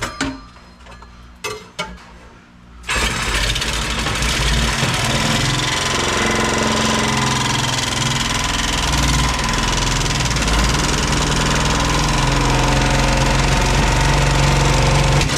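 A handheld power tool starts about three seconds in and runs steadily at one pitch, then cuts off abruptly near the end.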